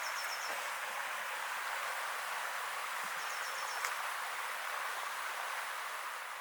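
Steady outdoor rushing noise, with two short runs of about five quick, high chirps: one at the start and one a little after three seconds in.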